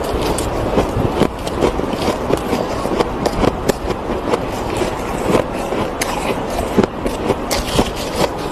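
Packed snow crunching as it is bitten and chewed close to the microphone: a dense, unbroken run of crisp crunches and crackles.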